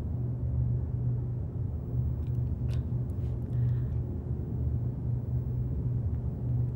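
A steady low rumble, with a few faint soft clicks between about two and four seconds in.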